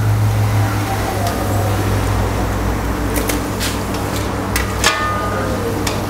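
Chicken vadas deep-frying in a steel kadai: the oil sizzles steadily over a low hum, and the perforated steel skimmer clicks several times against the pan between about three and five seconds in.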